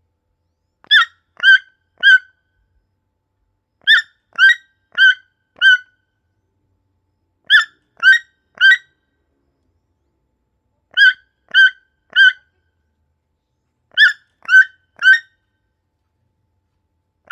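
Toucan calling: short calls given in bursts of three or four, about half a second apart, with a pause of about two seconds between bursts.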